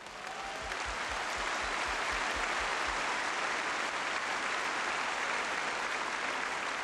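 A very large crowd applauding, swelling over the first second and then holding steady in approval of a demand just read out from the speakers' stand.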